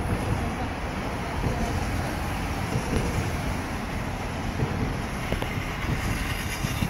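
Wind buffeting the microphone in a steady, dense noise, over the running of a steam locomotive as it moves past hauling its train.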